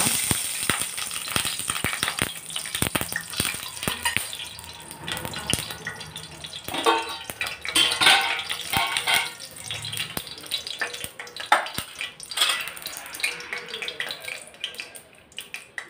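Cooking oil heating in a kadai, crackling with scattered sharp pops and spits over a light sizzle as it comes up to temperature for tempering.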